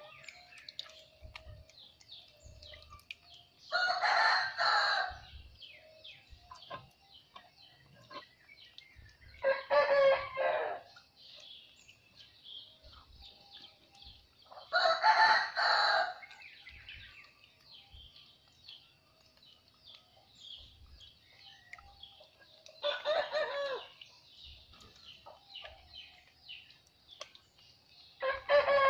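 Roosters crowing, five crows about five seconds apart, each lasting about a second, with faint high chirping between them.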